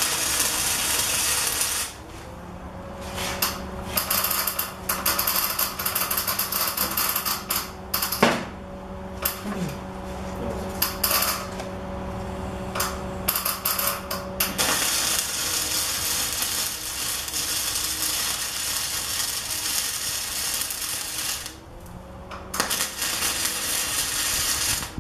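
Electric arc welding on steel tubing: the arc crackles and sizzles in several bursts of a few seconds each, the longest about seven seconds near the end.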